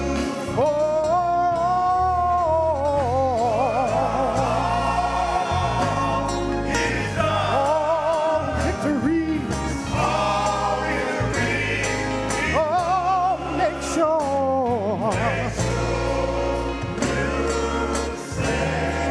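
Gospel choir singing with the band, a slow praise song carried by wavering sung vocal lines over a steady bass.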